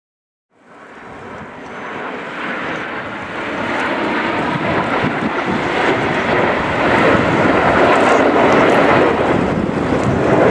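A formation of Aermacchi MB-339 jet trainers flying past. Their turbojet noise is a dense rushing sound that comes in about half a second in and swells steadily louder as they approach.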